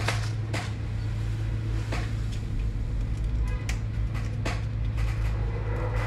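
Steady low hum with a few sharp clicks scattered through it, from small parts and tools being handled on a workbench.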